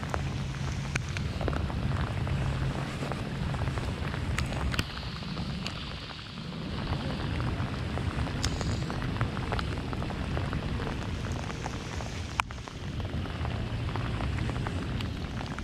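Steady rain falling, with many sharp ticks of drops striking close by over a low rumble. A single louder sharp click comes near the end.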